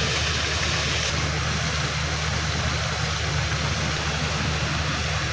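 Diesel engine of a stationary passenger train idling with a steady low hum, over a constant hiss of outdoor noise.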